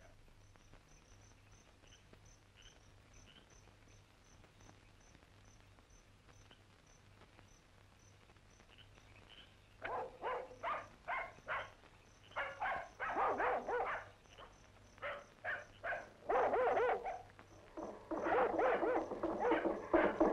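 Crickets chirping in a steady, even pulse over a faint low hum. About halfway in, a dog starts barking in repeated short bursts, the barks coming thicker toward the end.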